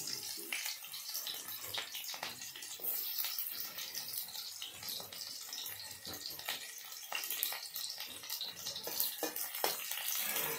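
Sliced onion and green chillies sizzling and crackling in hot oil in an iron kadhai. Near the end a metal spatula stirs and scrapes against the pan.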